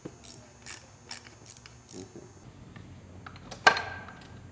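Ratchet wrench clicking in an even rhythm, about two or three clicks a second, while tightening valve cover bolts. Later, one loud metal clank with a short ringing note as a clutch assembly is set against the flywheel.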